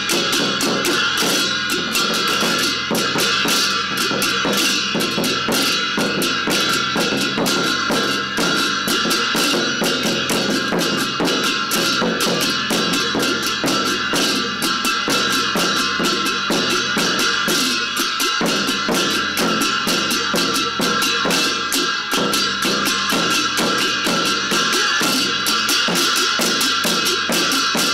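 Large Tibetan frame drum (nga) beaten in a rapid, steady roll with a curved stick, with cymbals and a hand bell ringing over it without a break.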